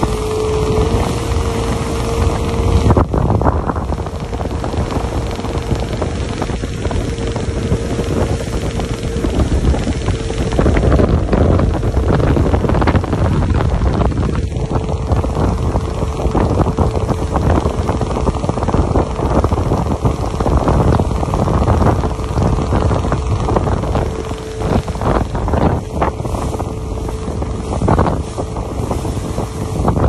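Motorboat running at speed over open water, with wind buffeting the microphone and the rush of water and wake. A steady hum sits under the noise.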